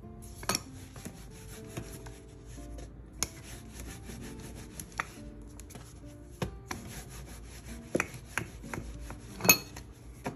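Dough being rolled out with a wooden rolling pin on a countertop: rubbing and rolling with irregular sharp wooden knocks as the pin is set down and the dough flipped, the loudest knock near the end.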